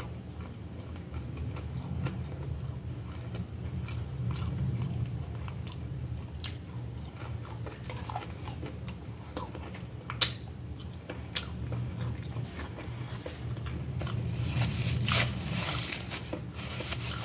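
Close-up mouth sounds of a person chewing boiled beef and stewed vegetables, with a few sharp wet clicks and smacks scattered through, more of them near the end.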